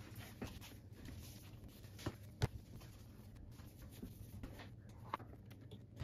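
Soft rubbing of a cloth wiping a tablet's glass screen, then a few light knocks and clicks as the tablet and its folio case are handled on the desk. The two sharpest knocks come a little after two seconds in, over a low steady hum.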